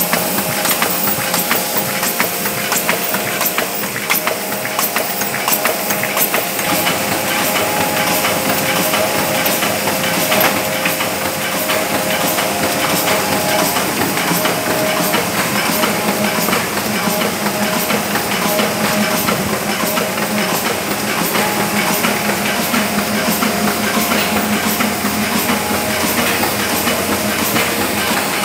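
Solna 132 single-colour sheetfed offset press running steadily, a dense, rapid mechanical clatter over a continuous drone.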